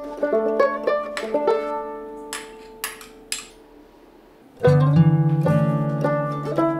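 Instrumental background music of plucked strings playing short melodic notes. A quieter stretch in the middle holds a few soft taps, and a fuller, louder passage with a low bass line comes in about two-thirds of the way through.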